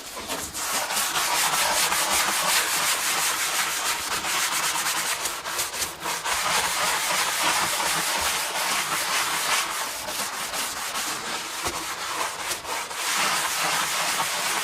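Small hand scrub brush scrubbing wet, mildewed boat fiberglass coated with degreaser, a steady run of quick back-and-forth bristle strokes.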